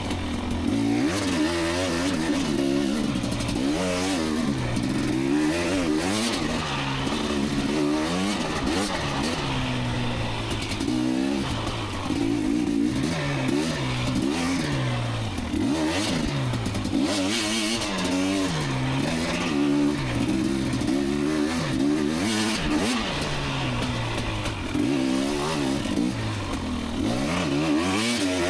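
Two-stroke dirt bike engine revving up and falling back again and again, its pitch rising and dropping every second or two as the throttle is worked and the rider shifts.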